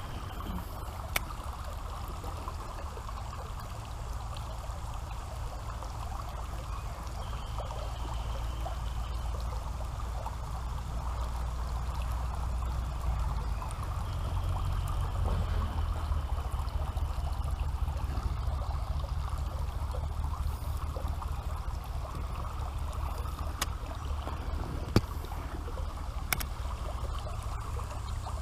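Creek water running steadily over rocks, with a low rumble underneath and a few sharp clicks, one about a second in and a few near the end.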